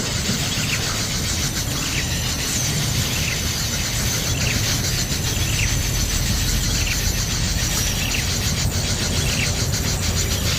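Outdoor ambience: a steady insect buzz with short bird chirps every second or two over a low rumble.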